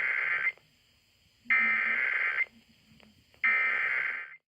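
Emergency Alert System SAME header: three bursts of screeching digital data tones, each about a second long with about a second's pause between, the first already under way. The header is the coded start of an alert, here a Required Monthly Test.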